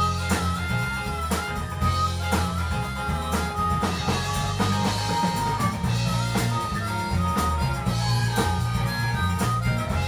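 Live rock band playing a blues-rock cover: drums and guitars over a steady beat, with a held lead melody line on top.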